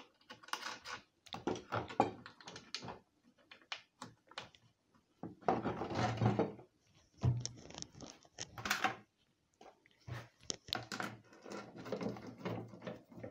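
Scattered clicks, clinks and knocks of skateboard hardware being handled: metal trucks set down over the mounting bolts on the deck and nuts fitted by hand.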